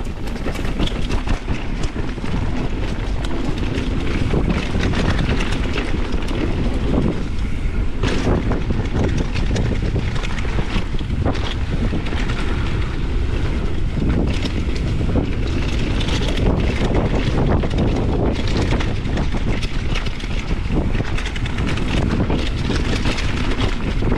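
Downhill mountain bike descending a dirt trail at speed: tyres rumbling on the dirt and the bike rattling and knocking over bumps, with wind rushing over the camera's microphone.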